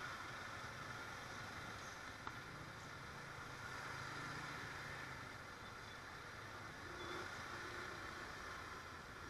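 Faint, steady traffic noise on a wet road: vehicle engines running at low speed under a hiss of rain and wet tyres, with a single click about two seconds in.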